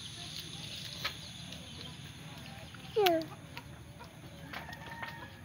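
A chicken clucks once about three seconds in: a short call that falls in pitch, over a quiet steady background.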